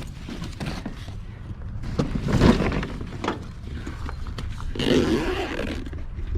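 Objects being handled and rummaged through in a box: a few irregular knocks and a rustle over a steady low rumble.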